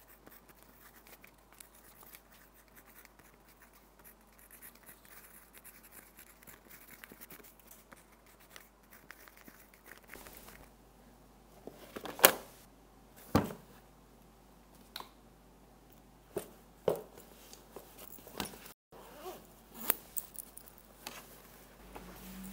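Quiet room tone, then from about ten seconds in a run of sharp clicks, scrapes and knocks as a backpack is handled, packed and zipped, the two loudest knocks close together a little after the twelve-second mark.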